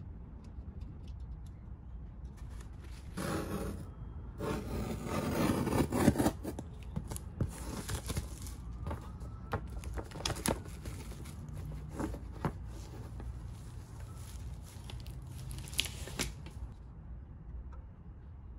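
Plastic wrap being torn and crinkled off a new oil pan gasket on its cardboard backing, loudest in a long rustle about five seconds in, followed by scattered sharp clicks and crackles of the packaging.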